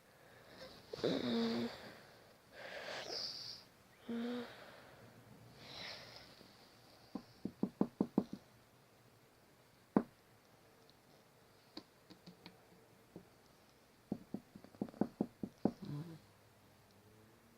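A few wheezing, snore-like breaths, then knocking: a quick run of about seven knocks, a single sharp knock, a few faint taps, and another quick run of knocks near the end.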